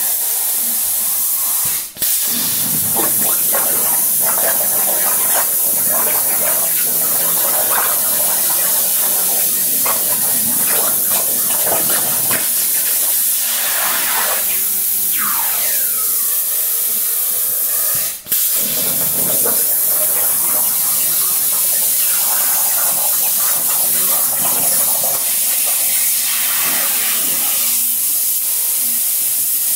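CNC plasma cutter torch cutting 3/16-inch steel plate: a loud, steady hiss of the plasma arc and air that drops out sharply for a moment twice, about two seconds in and about eighteen seconds in.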